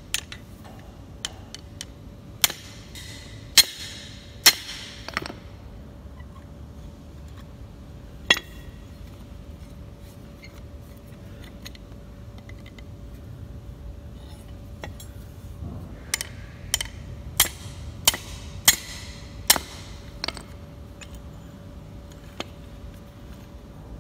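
A claw hammer strikes a rusty steel C-clamp's screw and frame. The sharp metallic knocks ring briefly and come in scattered groups of a few blows, a cluster about two to five seconds in and another quicker run near the end, as the seized screw is knocked free of the frame.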